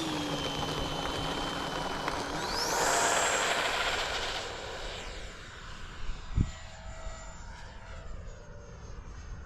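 FMS Futura 64 mm electric ducted-fan jet whining steadily, then rising sharply in pitch about two and a half seconds in as the throttle goes up, and fading away as the jet flies off. Wind noise sits under it throughout, and there is a single thump about six seconds in.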